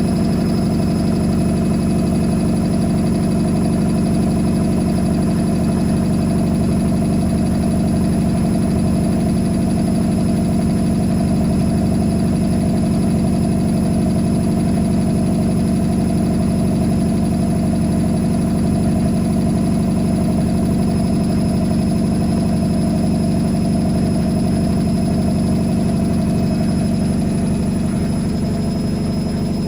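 Whirlpool AWM 864 Aquaprogramm washing machine running with a steady, unbroken hum, easing slightly near the end.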